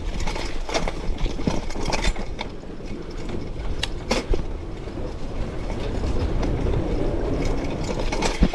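Mountain bike clattering over rocks and roots on a rough trail: chain, frame and suspension knocking and rattling with each bump, over a steady low rumble.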